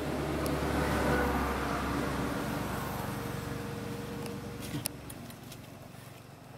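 A motor vehicle passing, its engine noise and hum peaking about a second in and then fading away, with a couple of sharp clicks near the end.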